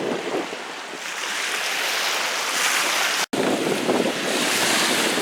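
Rough sea surf washing and breaking in the shallows, with wind on the microphone; the sound cuts out for an instant about three seconds in.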